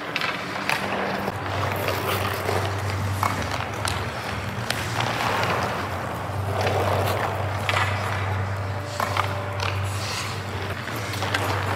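Hockey skates scraping and carving on rink ice, with a few sharp clacks of stick and puck at irregular moments, over a steady low hum.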